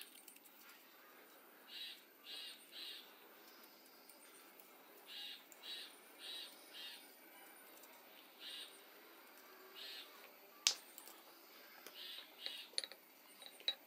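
Faint bird calls: short high chirps repeated in small groups of two to four every few seconds. A sharp click comes about eleven seconds in, and a few lighter clicks follow near the end as the metal pipe and valve fittings are handled.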